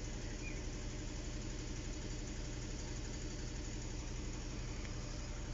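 An engine idling steadily, with an even low hum that neither rises nor falls.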